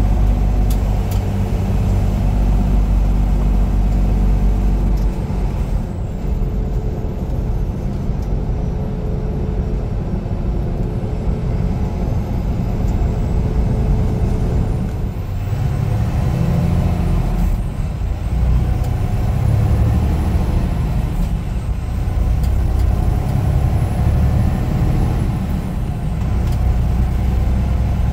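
Semi-truck diesel engine and road noise heard from inside the cab while driving, a steady low drone whose engine note changes a couple of times.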